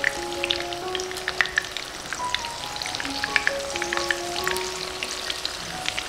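Stuffed eggplant slices frying in shallow oil in a wok: steady sizzling with many small crackling pops. A light melody of short held notes plays alongside.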